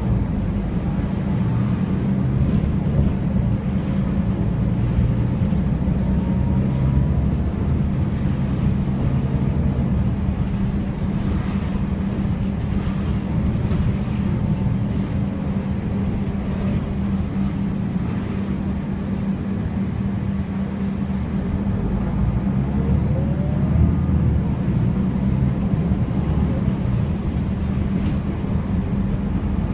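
Inside a MAN Lion's City city bus under way: steady engine and road noise with a strong low hum. A faint high whine rises, holds and falls away twice, the second time about three-quarters of the way through.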